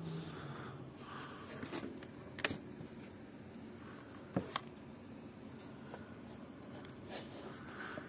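Faint rustling and scraping from hand-held handling close to the microphone, with a few sharp clicks, the clearest about two and a half and four and a half seconds in.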